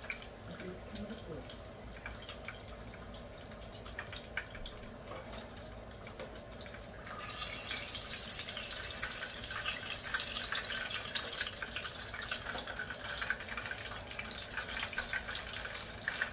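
Hot oil sizzling and crackling in a pot as wonton-wrapped tacos finish frying and are lifted out with tongs. The crackle turns louder and denser about seven seconds in.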